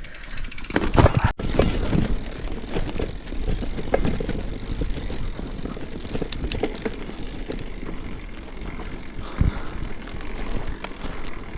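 Shulz Lone Ranger fat-tyre mountain bike riding over a forest trail: tyres rumbling on the rough ground, with many small rattles and knocks from the bike. The sound breaks off briefly about a second and a half in.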